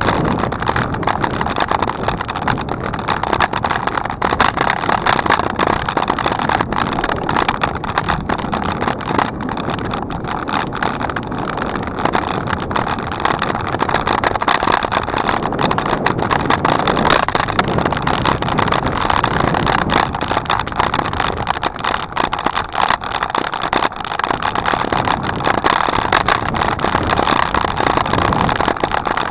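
Noise of a bicycle in motion: steady wind and tyre noise with dense rattling clicks throughout, loud and unbroken.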